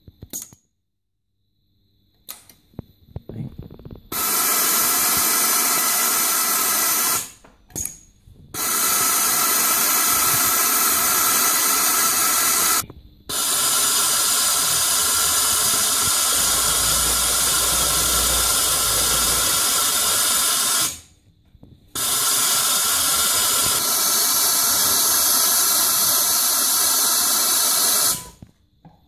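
Juki MO-6904R industrial overlock sewing machine running at high speed as it overedges denim, a loud steady hissing whir in four long runs with short stops between, after a few light clicks at the start.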